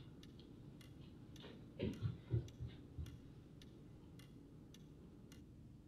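Clock ticking steadily, about two ticks a second, with a short run of soft low thumps about two to three seconds in.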